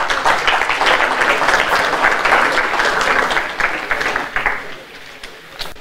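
Audience applauding, the clapping dying away about four to five seconds in.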